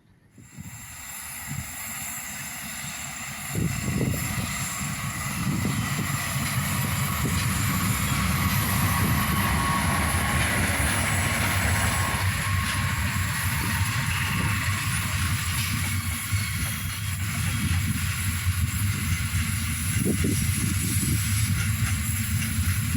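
Passenger train running past on the rails, growing louder and then jumping up about three and a half seconds in, then holding a steady rumble as the carriages go by.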